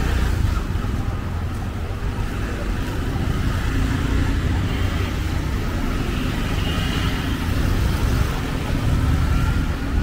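City street traffic: vehicle engines running with a steady low rumble.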